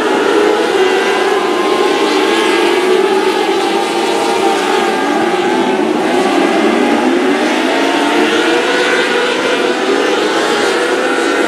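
A pack of small open-wheel dirt-track race cars running at speed, several engines at once, their pitch rising and falling as they go through the turns and down the straights.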